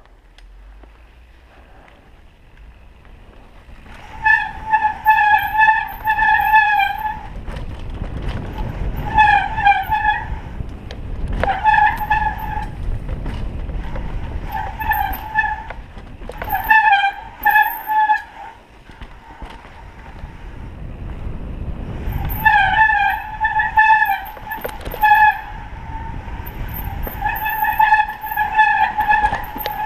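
Mountain bike disc brakes squealing in repeated bursts of a second or two each, one steady high tone, starting about four seconds in, over a low rumble from the ride over a dirt trail.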